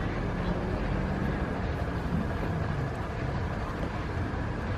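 A motor running steadily: a low hum under an even hiss, with no change in pitch or level.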